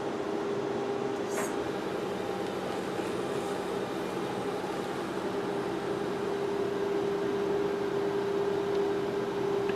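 Cryolipolysis slimming machine running at the start of a treatment, its handpiece vacuum and cooling system working: a steady hum with one held tone over a whirring noise.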